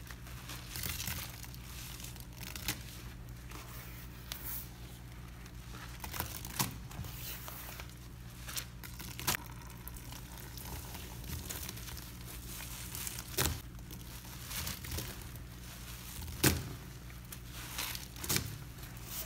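Gloved hands squeezing and rubbing dish sponges packed with powdered detergent: a continuous gritty crackling, with a few sharper pops in the second half.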